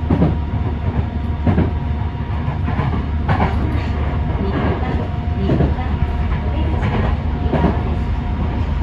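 Yokohama Municipal Subway 3000A-series train running, heard from inside the cab: a steady low rumble with a faint steady whine, and a sharp wheel clack about every second or so.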